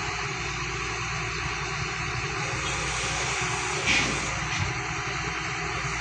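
Heavy diesel engine running steadily, with one short, sharp louder noise about four seconds in.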